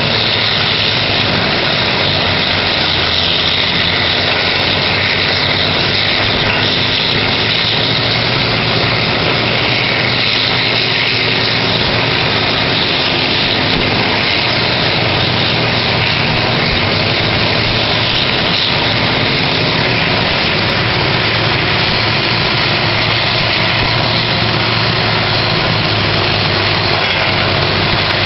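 Horizontal wood grinder and excavator running together: a loud, steady diesel engine hum under a dense, even grinding hiss that does not let up.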